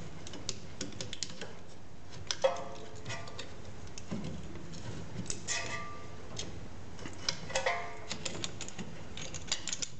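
Irregular metallic clicks and clinks in small clusters, some with a short ring, as a screw-type brake caliper piston compressor is wound in against the rear caliper, pushing the piston back into its bore.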